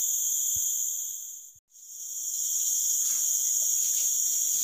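Dense chorus of forest insects buzzing steadily in several high-pitched bands. It fades out to silence for a moment about a second and a half in, then fades back in.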